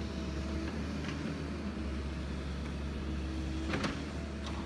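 A motor running steadily: a low, even rumble with a faint hum over it, and one short knock near the end.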